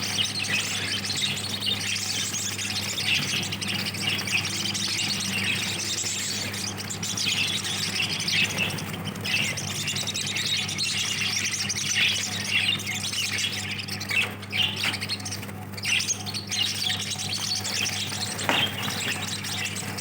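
A group of caged lovebirds chattering, with many overlapping chirps and squawks that never stop, over a steady low hum.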